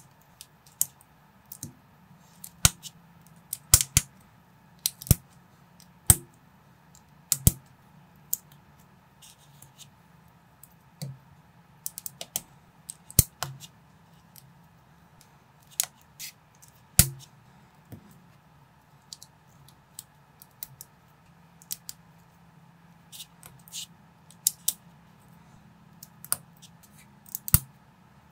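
Plastic LEGO-compatible bricks being pressed and snapped together by hand: dozens of sharp, irregular clicks over a faint steady hum.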